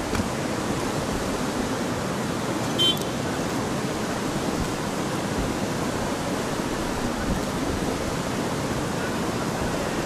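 Steady rush of a rain-swollen creek's flowing water. A brief high-pitched sound comes about three seconds in.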